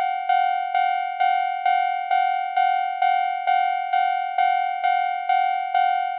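Japanese railroad crossing warning bell ringing 'kan-kan', an even bell tone struck a little over twice a second, each strike ringing on until the next.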